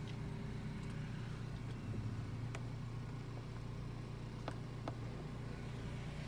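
2017 Buick Regal Turbo's engine idling, a steady low hum, with a few faint light clicks.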